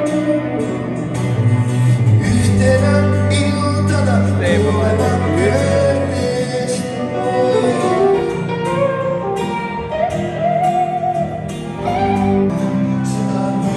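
Music: a song with a singing voice over long held bass notes.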